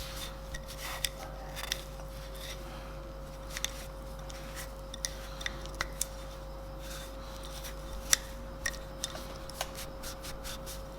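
Small metal hand tools clicking and clinking as they are handled and wiped with a rag, in scattered sharp ticks with one louder clack about eight seconds in. A steady hum runs underneath.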